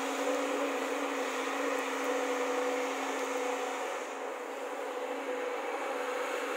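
JCB tracked excavator's diesel engine and hydraulics working as it raises its boom and swings its loaded bucket toward a dump truck: a steady engine drone with a constant hum. The lowest hum drops out and the sound eases slightly about four seconds in.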